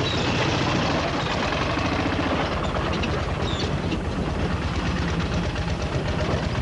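An engine running steadily at idle, with a fast, even beat.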